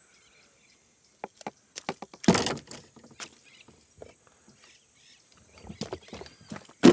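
Scattered knocks and splashes from a hooked peacock bass thrashing while it is held for unhooking, with one loud splash a little over two seconds in and another at the very end.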